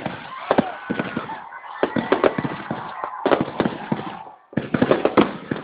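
Fireworks exploding in rapid, irregular volleys of sharp bangs, with a brief lull about four and a half seconds in.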